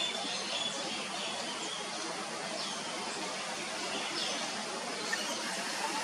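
Steady outdoor background hiss with faint, scattered short chirps of small birds.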